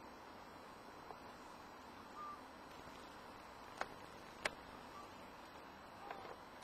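Faint outdoor ambience with a steady hiss, two short chirps and a few sharp clicks, the loudest two clicks about four seconds in, half a second apart.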